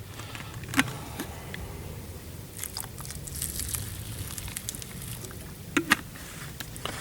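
Camp cooking pot and utensils being handled as water is added to a stew mix: sharp clinks about a second in and twice near the end, with a soft hiss in the middle.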